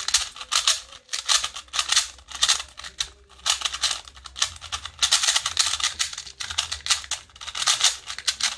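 Stickerless MoFang Jiaoshi MF2 2x2 speed cube being turned quickly by hand: rapid plastic clicking and rattling of the layers, in quick bursts with short pauses between them.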